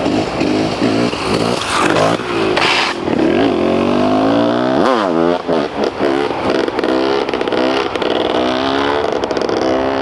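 KTM EXC 300 two-stroke enduro motorcycle with an FMF Shorty silencer, revving hard under acceleration. Its pitch climbs and drops again and again as it goes through the gears, with a sharp rise and fall about five seconds in.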